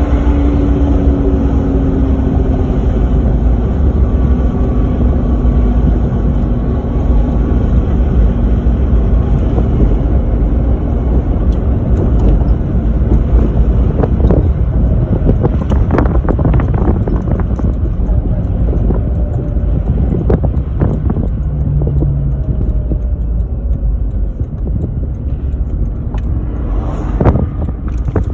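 Supercharged 2JZ-GE inline-six of a Lexus IS300 running as the car is driven on low boost, its pitch falling in the first few seconds. A few short sharp bursts around the middle and near the end, typical of the HKS SSQV blow-off valve venting as the throttle closes.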